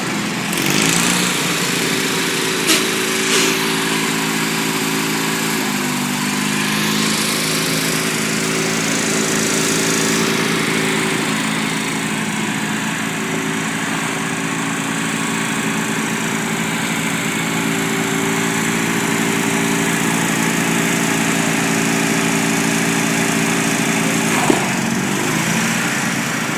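Lawn mower engine running steadily, its pitch dropping and recovering briefly twice, about six seconds in and near the end. A short sharp knock about three seconds in.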